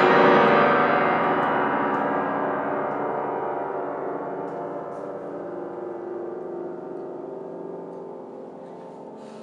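A loud chord on a grand piano, struck once and left to ring, fading away slowly over about nine seconds.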